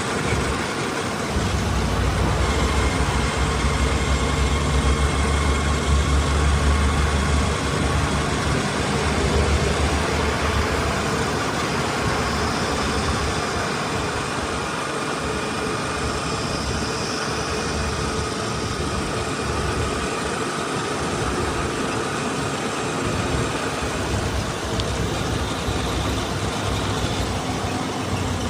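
Heavy diesel engine running steadily, with a deep low rumble that is strongest in the first third and eases a little after.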